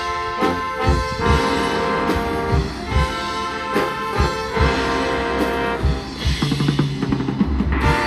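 Marching band playing: brass holding sustained chords over drum and percussion hits, with a quick run of drum strokes about six seconds in.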